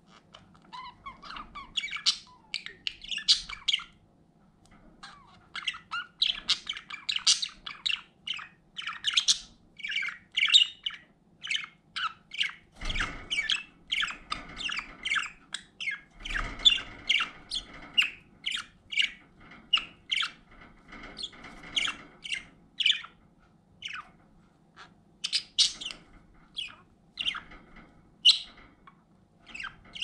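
Pet budgerigars chattering: a steady stream of short chirps and squawks, briefly pausing about four seconds in and again near the end.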